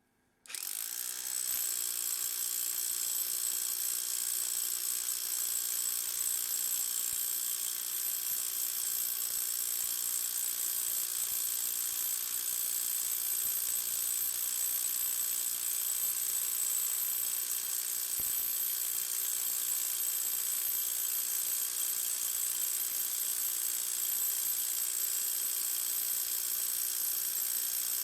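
SDS-plus rotary hammer in hammer-only mode, driving a ground rod into the ground. It starts about half a second in and runs steadily without a break, with a high-pitched whine over a low hum.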